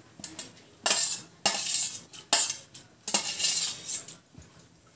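Metal spoon scraping soaked moong dal off a stainless steel bowl into a cooking pot, in a run of about six or seven short scrapes with brief pauses between them.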